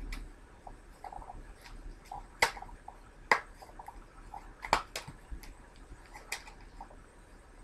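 Plastic DVD case being handled: four sharp plastic clicks over a soft rustle of the paper cover insert.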